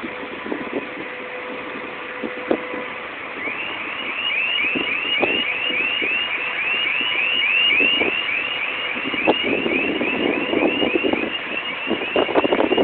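Electronic warning alarm on container-handling machinery sounding a quick train of short rising chirps, about three a second, starting about three seconds in, over scattered sharp knocks and machine noise that swells near the end.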